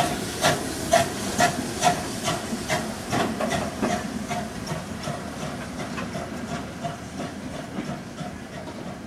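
Steam exhaust beats of GWR 0-4-2 tank engine No. 1450 pulling away with its train, about two chuffs a second, quickening slightly and fading as the train draws off, over a steady hiss of steam.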